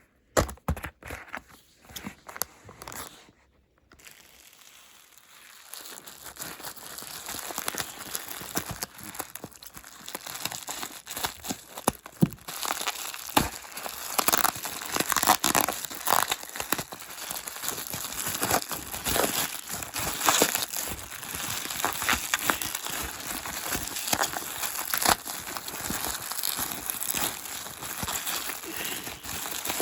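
Toy packaging being opened by hand: a few sharp handling knocks and clicks at first, then from about six seconds in steady crinkling and tearing of the plastic wrapper.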